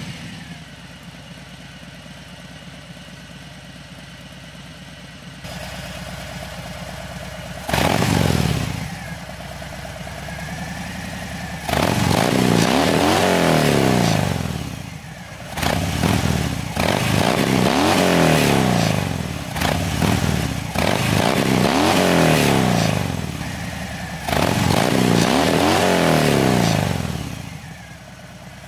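Harley-Davidson Fat Bob 114's Milwaukee-Eight 114 V-twin running through Vance & Hines dual mufflers. It idles steadily just after start-up, gives one quick throttle blip about eight seconds in, then is revved hard four times in long pulls, each one falling back toward idle.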